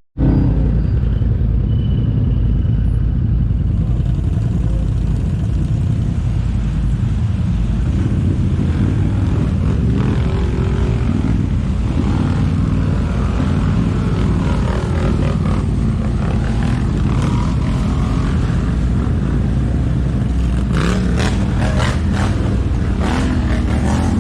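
ATV (quad bike) engine running steadily while riding, with a run of knocks and rattles near the end.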